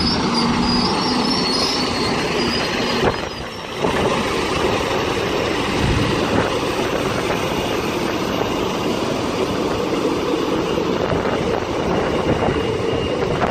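Train running past at close range: steady wheel-on-rail noise with some wheel squeal.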